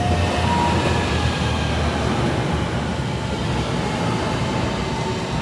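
RapidKL LRT train running past on the Sri Petaling line: a steady, loud rumble of wheels on rails with a faint whine over it.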